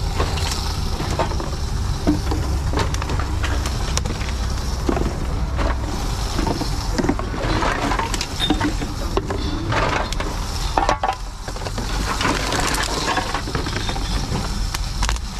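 TOMRA reverse vending machine for cans and plastic bottles running with a steady low hum, amid repeated clinks and knocks of empty cans and bottles being handled and fed into its intake.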